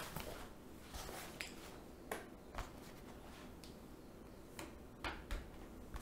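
Faint handling noise: about eight light clicks and rustles spread out over a low steady hum.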